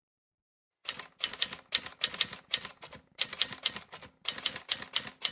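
Typewriter keys clacking in quick runs of keystrokes, starting about a second in.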